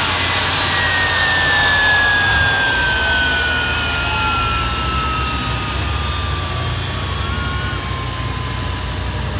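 Jet engine winding down: its turbine whine falls steadily in pitch over a loud rushing noise and low rumble, the sound of the engine spooling down after being throttled back.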